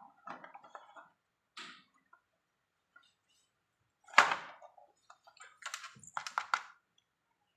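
Handling noise of small plastic objects: scattered clicks and rustles, one sharp knock about four seconds in, and a quick run of clicks about six seconds in.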